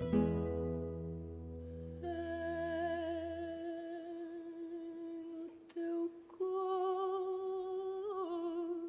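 A plucked guitar chord with a low bass note rings and dies away over the first few seconds. Then a woman's fado voice holds one long opening note, rising a little partway through and wavering near the end, over sparse guitar.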